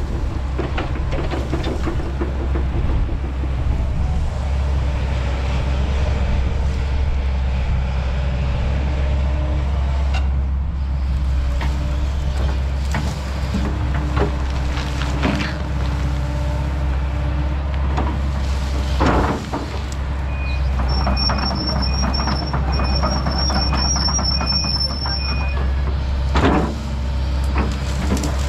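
Kobelco SK210 excavator's diesel engine running steadily under work, with scattered clunks from the machine. About two-thirds through, a run of short evenly spaced beeps sounds for several seconds.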